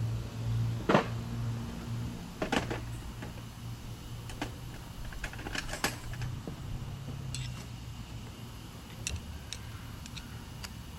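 Metal hand tools clicking and clinking in irregular, separate strikes as pliers work a freshly crimped cable terminal free, over a low steady hum that fades out about two-thirds of the way through.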